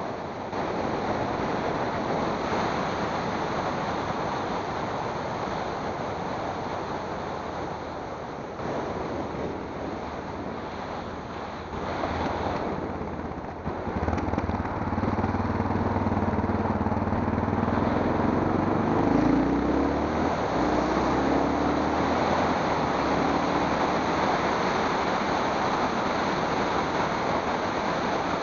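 Wind rushing over the microphone of a camera moving along a road. From about halfway, a car's engine is heard close by, rising in pitch as the car accelerates away from a roundabout.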